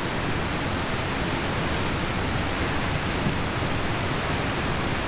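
Steady rush of a mountain stream's running water, an even hiss that does not change.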